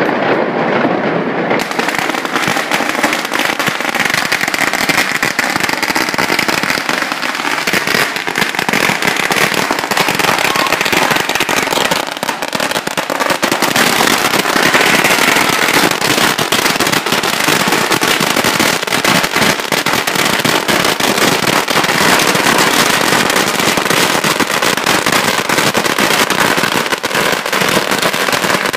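Strings of firecrackers going off nonstop on the road: a dense, rapid rattle of sharp bangs that never lets up.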